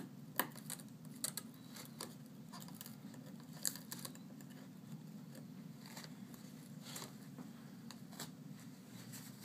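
Scattered small clicks and scrapes of tools and broken glass pieces being picked from a shattered iPad 2 screen frame, the sharpest about half a second in and again near four seconds, over a steady low hum.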